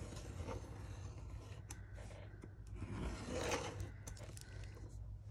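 Craft knife drawn down a steel ruler, slicing through thick envelope and paper layers: a rasping, scraping cut with small clicks, loudest about three seconds in.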